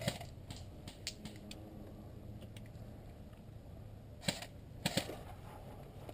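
Airsoft guns firing single shots: scattered sharp pops and clicks, several close together near the start and the loudest ones about four and five seconds in.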